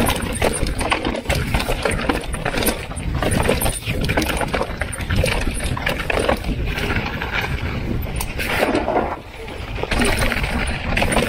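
Mountain bike clattering and rattling down a dry, rocky dirt trail, tyres crunching over dirt and stones in quick irregular knocks, with wind rumbling on the camera microphone.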